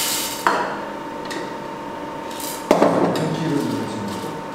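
Small electric sample coffee roaster running with a steady high hum, with a sharp knock about half a second in and a louder clatter of handling near the three-second mark.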